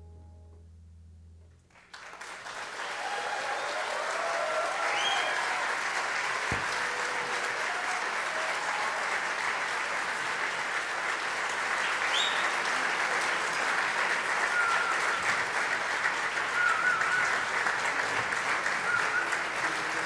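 The final held chord of a small jazz ensemble dies away, and audience applause breaks out about two seconds in, building and holding, with scattered cheers.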